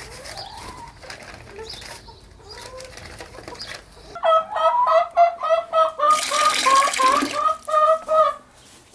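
Domestic hens clucking and calling in quick runs of short repeated notes, starting about four seconds in. A short hiss of noise sounds among the calls in the middle.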